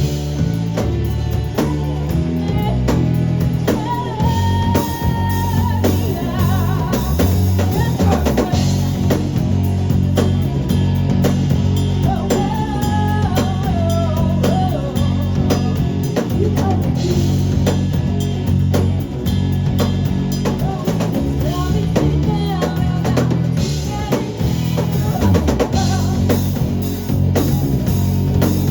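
A live rock band playing, with a drum kit keeping a steady beat under bass and a voice singing in places.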